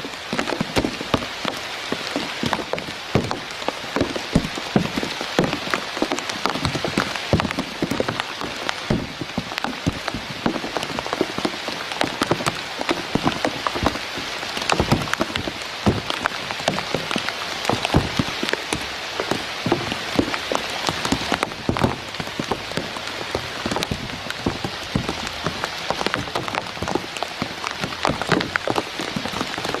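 Rain falling steadily on surfaces: a dense, continuous run of small drop impacts with no pause.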